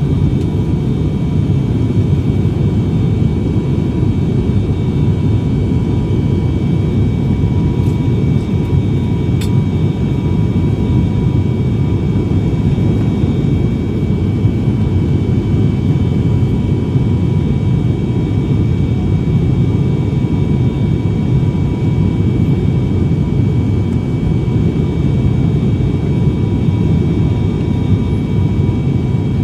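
Cabin noise inside an ATR turboprop airliner descending low on approach: a steady low rumble from its propellers and engines, with faint constant tones above it.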